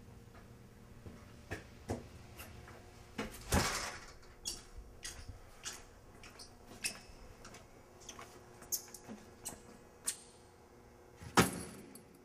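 A glass entry door pushed open on its push bar and a person walking in, with scattered clicks, knocks and squeaks of the door and footsteps. The loudest knocks come about three and a half seconds in and again near the end.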